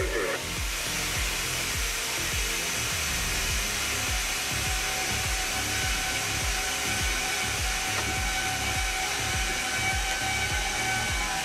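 Diesel locomotive cab noise while the train is under way: a steady engine and rolling rumble with a low pulsing about three times a second and a faint steady whine over it.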